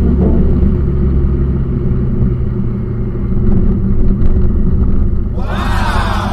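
Vehicle engine running under load with a heavy, steady rumble on a steep off-road climb. Near the end, a pitched sound glides downward.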